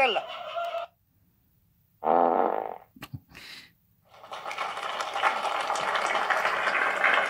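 Short sound-effect clips played from an SD card through a Maono portable voice amplifier's small speaker while tracks are skipped: a brief buzzing sound about two seconds in, a click, then a steady dense noisy sound from about four seconds on.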